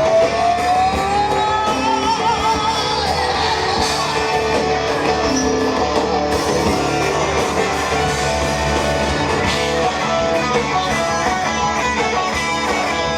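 A live rock band playing a loud instrumental passage between sung lines, led by guitar; a long rising, wavering note opens it in the first two seconds.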